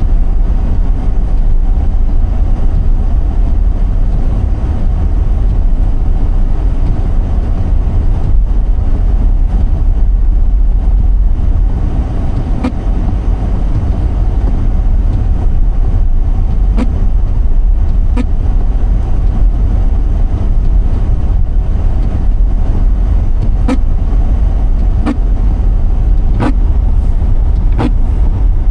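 Car driving, with a steady low rumble of road and engine noise. From about halfway in, short sharp clicks or knocks come every second or so, about every second and a half near the end.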